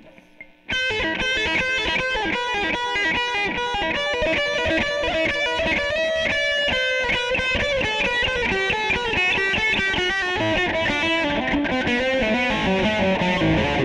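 Amplified acoustic guitar fitted with an A Little Thunder pickup, which sends the low strings to a bass output, playing a fast run of picked notes over a low bass line. It starts abruptly about a second in.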